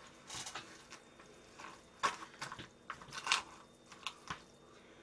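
Chopsticks mixing sauce-coated bibim naengmyeon (cold buckwheat noodles) in a plastic bowl: a soft scatter of short wet squishes and clicks.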